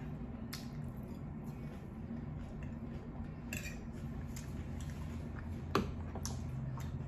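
A metal fork clinking and scraping against a plate as food is picked up. It gives a handful of sharp clicks, the loudest about six seconds in, over a steady low hum.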